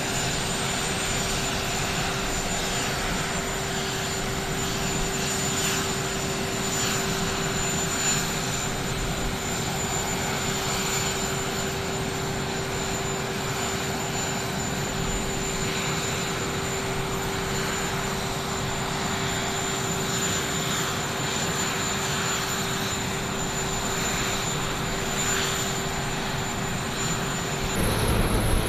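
Aircraft turbine engines idling on the tarmac: a steady whine with a low hum and a thin high whistle. Near the end the whine cuts off and a lower helicopter rotor and engine sound takes over, louder.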